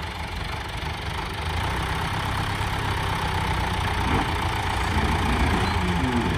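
John Deere tractor's diesel engine running at low revs as the tractor crawls up the steel ramps onto a low-loader trailer, growing slightly louder as it goes.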